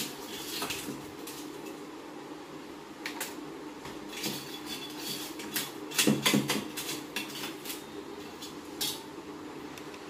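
Ice being broken up and stirred in a metal bowl: irregular clinking and clattering knocks, loudest in a quick cluster about six seconds in.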